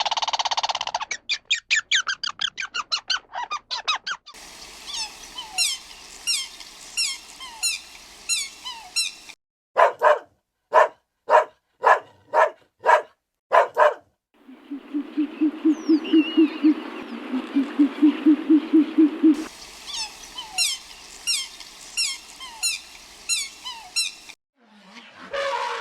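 A string of different farm animal calls cut one after another. First come quick pulsing calls, then repeated high chirping, then a run of short calls about two a second. A low, fast pulsing call follows, and high chirping returns near the end.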